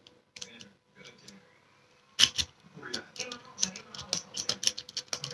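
Steel lock-picking rake scraping and clicking in the keyway of a cheap euro profile cylinder lock as it is raked back and forth over the pins: rapid, irregular metallic ticks and scrapes, the sharpest about two seconds in.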